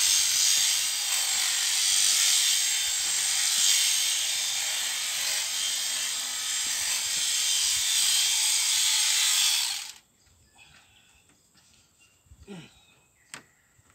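Electric sheep shearing handpiece running steadily through a lamb's fleece, then switched off suddenly about ten seconds in. A few faint knocks follow.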